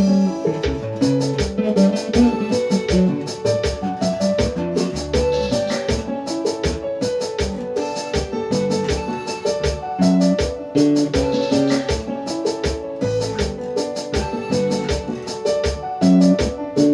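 Instrumental band music: an electric bass plays a busy, rhythmic line of short low notes under keyboard chords.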